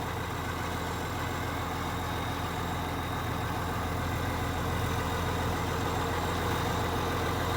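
John Deere 790 excavator's diesel engine idling steadily.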